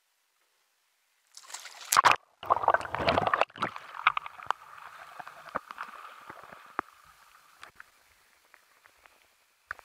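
Sea kayak rolling over and back up: a loud splash and rush of water washing over the deck a second or so in, then water streaming and dripping off the boat, paddle and paddler, fading away over several seconds.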